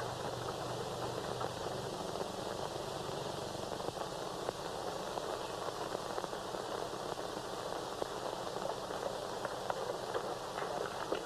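Steady hiss and crackle of a worn 1930s optical film soundtrack, with a faint low hum that stops about two seconds in.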